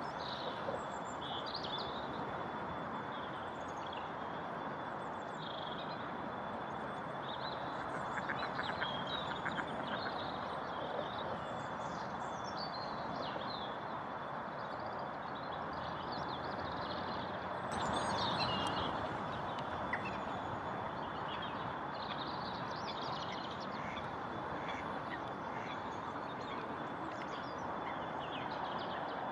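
Wetland birds calling on and off, ducks among them, with short high calls from small birds, over a steady background noise that swells briefly about two-thirds of the way through.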